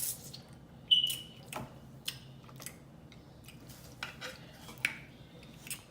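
Eating utensils clicking and clinking against dishes while seafood is picked apart. There are scattered sharp clicks; the loudest, about a second in, is a metallic clink with a brief high ring.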